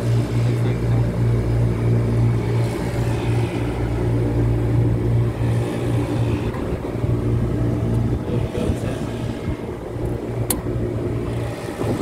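York chiller running with its system 2 compressor on: a steady low machine hum. A single sharp click comes near the end.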